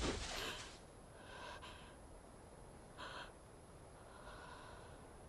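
The tail of a loud, sudden hit dies away in the first second, then faint short breaths follow, with a sharp gasp about three seconds in.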